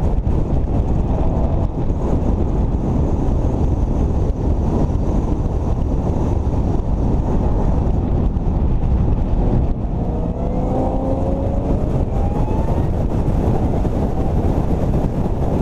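Heavy wind buffeting on a hood-mounted camera at track speed, with the car's engine running under it. About ten seconds in the level dips briefly, then a faint rising engine note climbs.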